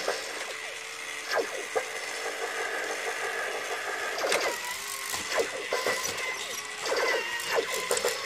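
Battery-powered toy robot's small gear motor whirring and clicking in irregular bursts as it moves, with a steady high tone underneath.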